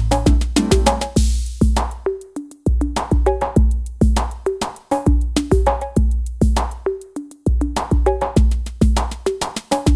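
TR-808-style electronic drum pattern synthesized on the Roland MV-8000's Analog Modeling Bass virtual analog synth, playing as a steady loop: a deep booming kick, sharp clicks and short pitched tom-like hits. The beat drops out briefly twice.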